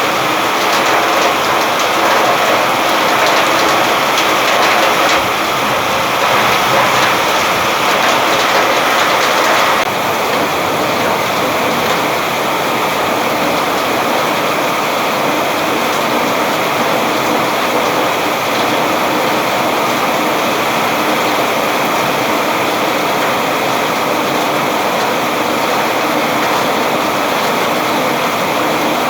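Steady rain falling, a dense, even hiss. About ten seconds in it drops slightly in level and loses some of its brightness, then carries on evenly.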